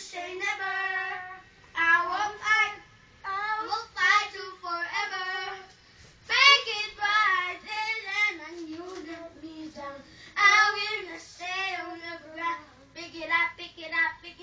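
A boy singing into a handheld microphone, karaoke-style, in short sung phrases with brief pauses between them.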